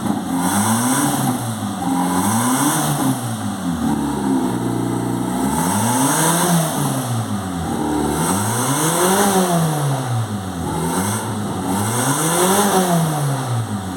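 Turbocharged Alfa Romeo 147 engine revved repeatedly, its pitch rising and falling about five times, with a hiss around each rev peak that fits the turbo flutter on lift-off.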